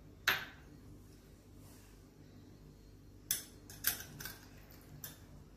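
A steel spoon clinking against a stainless steel pan as soya sauce is spooned in: one clink just after the start, then a few more between about three and five seconds in.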